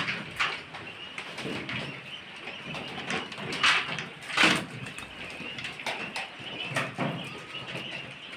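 A crowded flock of young quail calling steadily, with a few short rustling bursts, the loudest about three and a half and four and a half seconds in.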